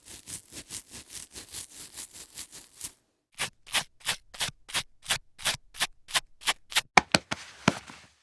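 Fingernails scratching skin in quick short strokes, about six a second. After a brief pause about three seconds in, a second run of louder, more spaced-out strokes follows, coming faster toward the end.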